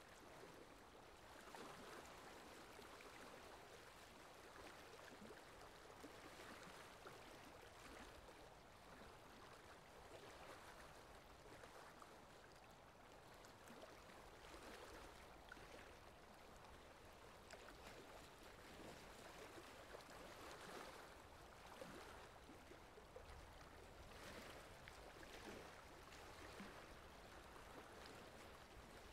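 Faint, wet squelching and trickling of hands digging through waterlogged mud, with small irregular splashes.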